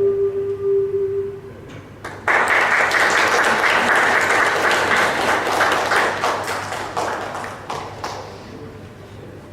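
The last held note of an ocarina ensemble dies away, and about two seconds later the audience breaks into applause all at once, which fades out over about six seconds.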